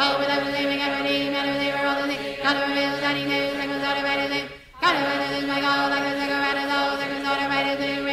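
Chanted voice tones held on one steady pitch, each lasting about four and a half seconds, with a short break for breath about four and a half seconds in before the next tone starts.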